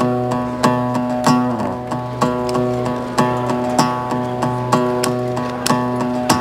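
Acoustic guitar strummed in a steady, repeating rhythm, the chord ringing on between strokes.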